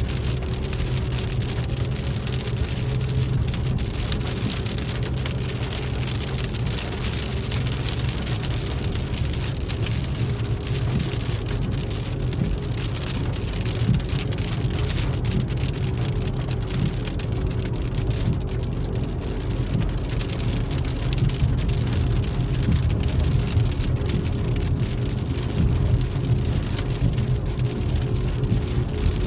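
Rain falling on a car's roof and windshield, heard from inside the moving car, over a steady low drone of engine and road noise.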